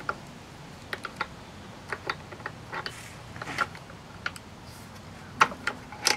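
Scattered light metallic clicks and clinks of a wrench and hand tools working on an old Briggs & Stratton engine, irregular, with the loudest pair of clicks about five and a half seconds in.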